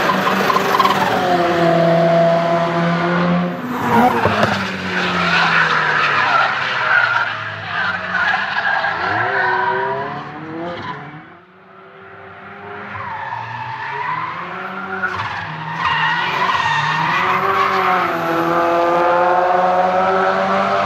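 Single-turbo Toyota GT86's flat-four engine revving hard, its pitch climbing and falling again and again as the car drifts, with tyres skidding. The sound drops away briefly about halfway through, then builds back up.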